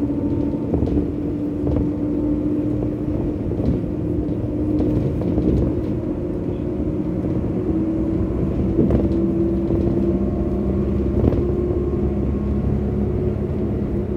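A moving vehicle's engine and tyre noise heard from inside it: a steady road drone with a hum whose pitch creeps slowly upward.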